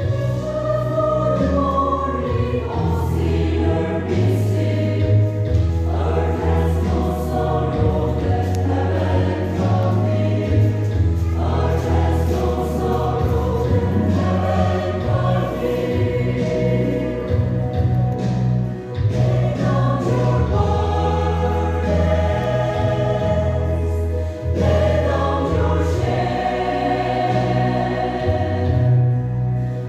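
Mixed choir of men and women singing together, with only brief breaks between phrases.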